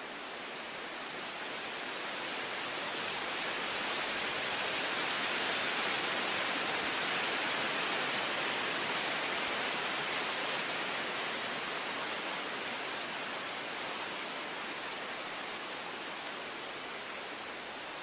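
Steady rushing noise with no distinct events, swelling gently over the first six seconds or so and then slowly easing.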